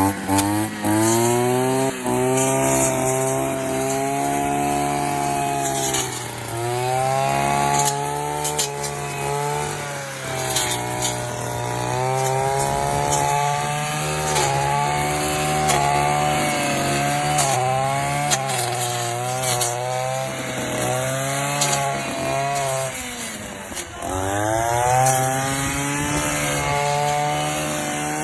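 Kamastsu KM330 brush cutter's 32.6 cc two-stroke engine running at high revs. The revs dip briefly about six seconds in and again near the end, then rise again.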